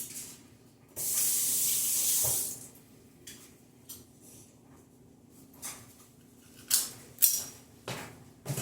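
A sharp hiss of spray lasting about a second and a half, switched on and off abruptly. It is followed by a few light kitchen clicks and knocks.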